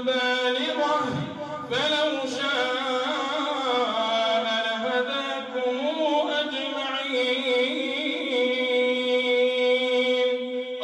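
A man's voice chanting Quran recitation into a microphone. He sings long held notes with melodic turns between them.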